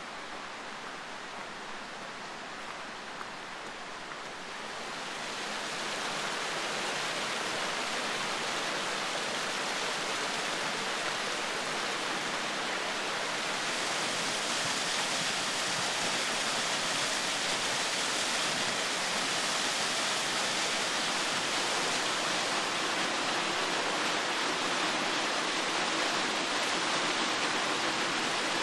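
Steady rush of a mountain stream and small waterfall, getting louder about five seconds in and again near the middle.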